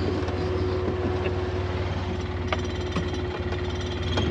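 Vehicle engine running slowly, a steady low rumble of rapid, even pulses with a constant hum above it.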